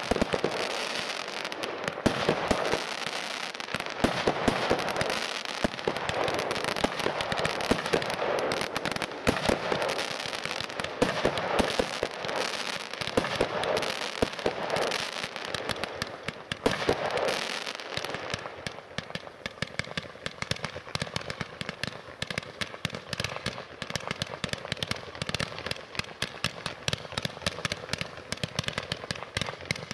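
Weco Power Tec PRO 300.1, an automatic firework of combined batteries, firing without a break: a dense string of launches and aerial bursts. About eighteen seconds in it turns a little quieter, into a quick, even series of sharp pops.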